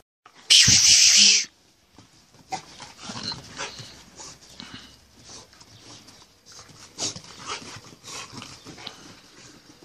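Two bulldogs play-fighting: dog noises and scuffling on the dirt. About half a second in there is a loud, harsh burst that lasts about a second.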